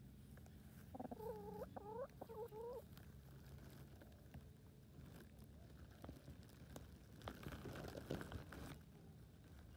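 Domestic hens making three short, soft calls about a second in, then faint rustling and tapping in the grass close by near the end as they forage.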